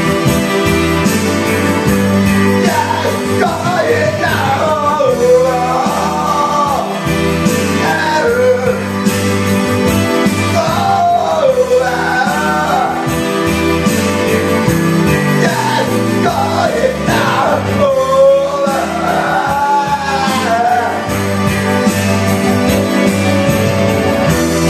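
A man singing into a karaoke microphone over a karaoke backing track. The singing starts about two seconds in and stops a few seconds before the end, leaving the backing track playing alone.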